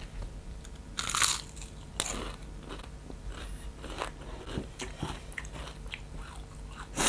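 Crispy fried chicken being bitten and chewed close to the mic: a loud crunch about a second in, then smaller crunches and crackles of chewing.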